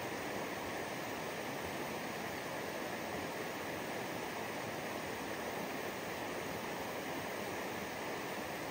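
Steady rushing of a creek, an even hiss that never changes.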